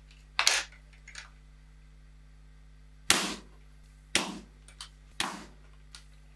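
Weihrauch HW95 break-barrel spring-piston air rifle in .25 being cocked, loaded and fired: four loud sharp clunks and snaps with smaller clicks between them, from the barrel breaking and locking shut and the spring piston firing.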